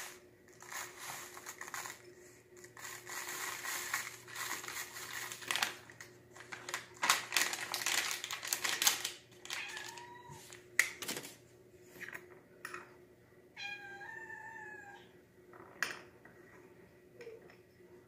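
Plastic packet crinkling as dry dessert crumbs are poured and shaken out of it into a small plastic bowl. A short meow comes about ten seconds in, and a longer, falling meow follows a few seconds later.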